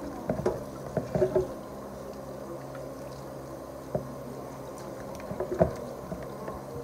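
Tap water running steadily over raw pork chops being rinsed by hand in a plastic colander in a stainless steel sink, with splashing and a few sharp clunks as the meat is handled and knocks against the colander, the loudest about five and a half seconds in.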